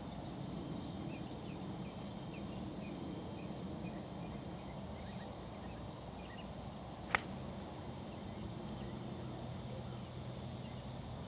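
A golf club strikes the ball off the tee with a single sharp click about seven seconds in.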